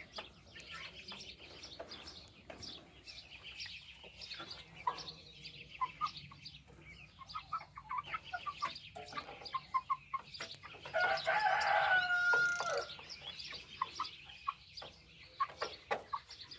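Young lavender Orpington chickens clucking as they peck at feed in a metal trough feeder, with short calls and taps throughout. About two-thirds of the way through comes one louder, drawn-out call lasting over a second.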